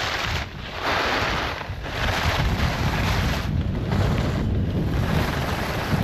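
Wind rumbling on the microphone of a fast-moving skier, with the hiss of ski edges carving groomed snow. The hiss swells and fades with each turn, about once a second.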